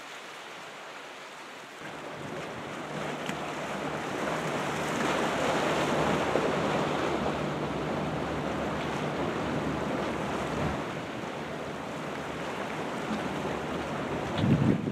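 Ocean surf breaking and washing in, the rough swell of an approaching typhoon, with wind buffeting the microphone. The rush of the waves builds about two seconds in, is loudest midway and eases off, with a brief low bump near the end.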